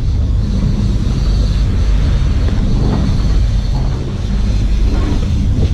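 Boat engine running steadily at trolling speed, a low, even rumble.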